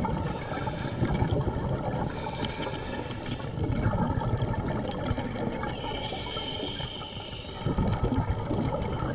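Underwater sound of a scuba diver's breathing and exhaled air bubbles gurgling, coming in swells, the strongest about four seconds in and near the end.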